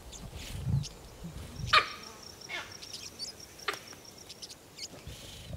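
Wildlife ambience of short animal calls, the loudest a sharp call with a falling tail nearly two seconds in and two weaker ones after it, over a fine high-pitched insect-like trill. Low rumbling sounds in the first two seconds.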